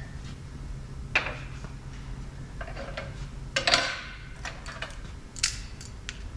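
Metal hand tools clinking and clanking as a wrench and fitting are handled on a steel bench: a single knock about a second in, the loudest cluster of clanks a little past halfway, and another sharp clink near the end.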